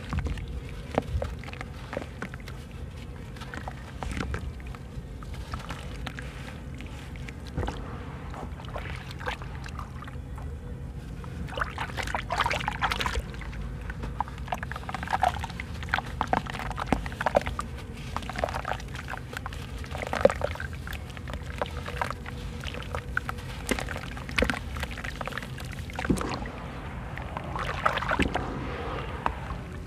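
Wet sand-cement block being crumbled by hand into a basin of water: gritty sand trickling and splashing into the water, with sloshing as the soaked chunk is dipped and squeezed. The crumbling comes in irregular crackly bursts, louder at a few points, and near the end it turns to the squelch of wet slurry being kneaded.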